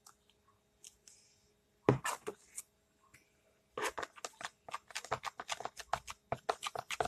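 Foamy slime mixture being stirred in a plastic bowl with a plastic stick: a short squish about two seconds in, then rapid sticky crackling and squelching clicks from about four seconds in.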